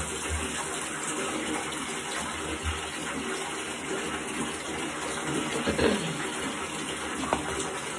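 Water running steadily from a bathroom tap, an even rush, with a couple of small knocks in the second half.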